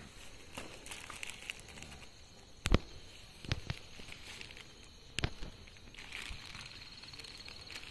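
Freshly lit wood-and-grass fire crackling, with a few sharp pops, the loudest about three seconds in. Crickets chirp faintly and steadily underneath.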